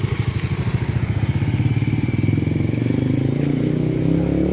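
Small motor scooter's engine running as it passes close by and rides off. Its pitch rises through the second half.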